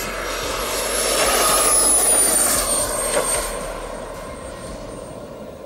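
Radio-controlled model jet turbine whining in a low pass along the runway. It swells to a peak about two seconds in, drops in pitch as it goes by, then fades away.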